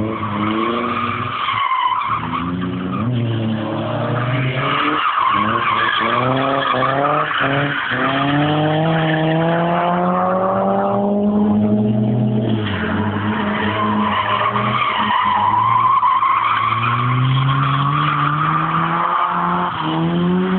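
Rear-wheel-drive car drifting: the engine revs rise and fall, held high for a few seconds in the middle, while the tyres squeal through most of it, breaking off briefly a little past halfway.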